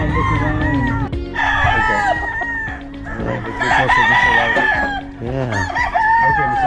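Many roosters crowing over one another, with chickens clucking among them.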